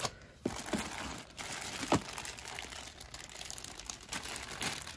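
Clear plastic zip-lock bags holding loose action figures rustling and crinkling as hands rummage through a tub of them, with a sharp click about two seconds in.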